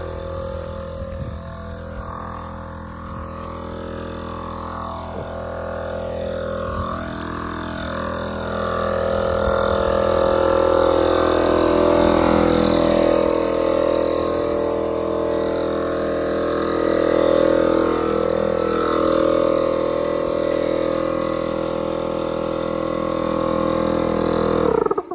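Electric air compressor running: a steady, even machine drone that grows louder partway through and cuts off suddenly at the end.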